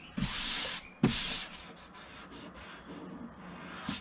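Bare palms sweeping over a fiberglass seat cowl freshly sanded with 80-grit paper, a dry rubbing hiss: two strong strokes in the first second and a half, then softer rubbing. The hands are feeling the surface for the cracks that have now been filled and sanded smooth.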